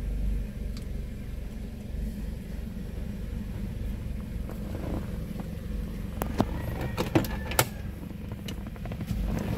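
Mazda 3 engine idling steadily, now running after a new fuel pump cured its crank-but-no-start fault. A handful of sharp clicks and knocks come between about six and eight seconds in.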